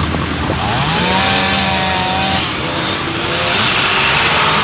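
Chainsaw engine revving up about a second in and running at high speed, easing off partway through and revving again.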